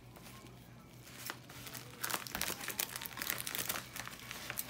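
Crinkling and rustling of a shipping mailer's wrapping as it is handled and opened: a dense run of crackles that starts about a second in and gets louder from about two seconds.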